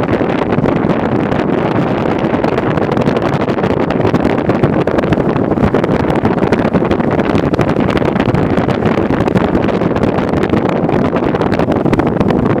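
Steady rumble of a vehicle driving along a broken road surface, with wind buffeting the microphone.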